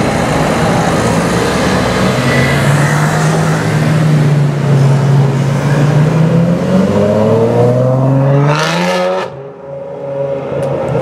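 Ferrari F12berlinetta's V12 breathing through an Armytrix titanium straight-pipe exhaust: loud and steady at first, then accelerating hard with a steeply rising pitch for about three seconds. The sound falls away suddenly about nine seconds in.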